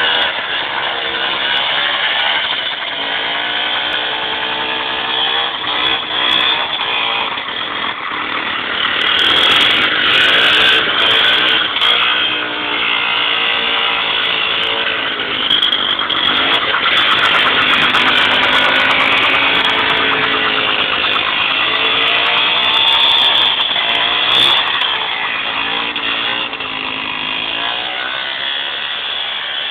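MZ two-stroke motorcycle engine in a homemade quad bike, running and revving up and down over and over, with its loudest stretches about ten seconds in and again from about seventeen to twenty-four seconds.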